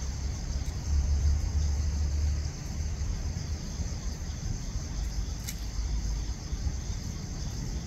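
Low outdoor rumble, louder for a second or so near the start, under a faint steady high hiss, with a single small click about five and a half seconds in.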